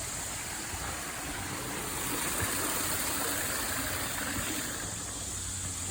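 Steady rush of water running through a working scale model of a river-and-dam lake system, with a faint low hum underneath.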